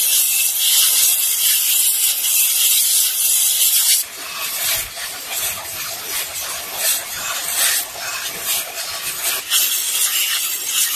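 Belt grinder's abrasive belt grinding a forged steel blade blank, a steady high hiss. About four seconds in it gives way to a coarser grinding that rises and falls unevenly, and the high hiss of the belt returns near the end.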